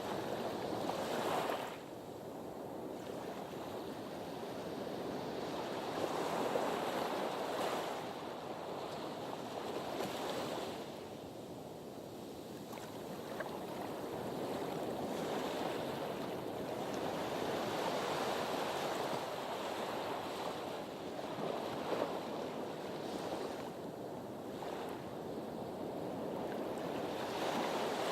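Sea waves washing against a harbour breakwater. The surf swells and ebbs every few seconds in a steady, unbroken wash.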